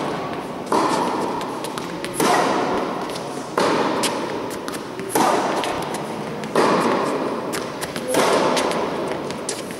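Tennis balls struck hard with a racket, six sharp hits about every one and a half seconds, each echoing in a large indoor hall, with lighter ball bounces and clicks in between.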